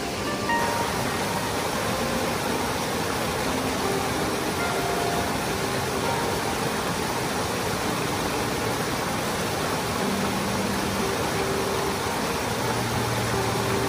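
Rain-swollen river rushing through white-water rapids over boulders: a steady, loud rush of water, stepping up slightly about half a second in.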